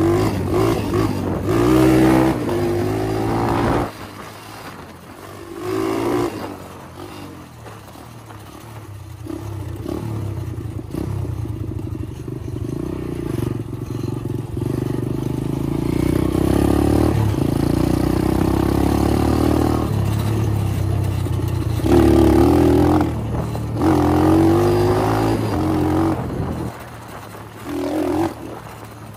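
Syx Moto 125cc pit bike's single-cylinder four-stroke engine being ridden, its pitch rising and falling with the throttle. The revs drop off sharply about four seconds in, run steadier through the middle, and climb hard in several bursts after about twenty seconds.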